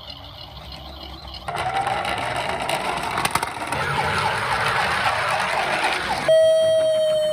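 Ambulance siren sounding. From about a second and a half in, a wavering tone rises in pitch over a noisy rush. Near the end a louder steady siren tone takes over and falls slowly in pitch.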